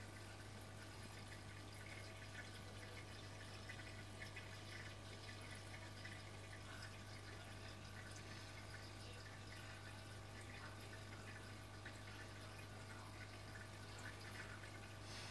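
Aquarium pump humming steadily, with faint trickling and dripping water from the tank.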